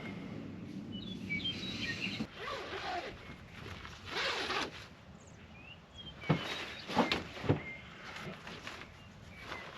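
Rustling and handling sounds of someone getting dressed and tidying up, with three sharp knocks in quick succession from about six to seven and a half seconds in. Faint bird chirps come through in the background.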